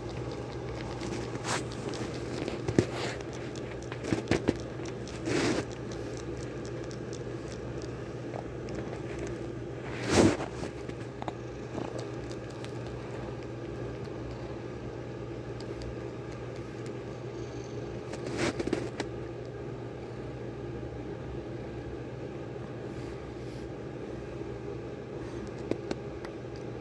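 A kitten shifting on a shirt and fleece blanket: a few short rustles and scrapes of fabric, the strongest about ten seconds in and another near nineteen seconds, over a steady low hum.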